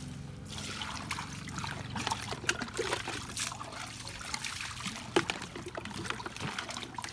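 Water trickling and splashing while pig meat is washed, with many short knocks and splashes scattered through it.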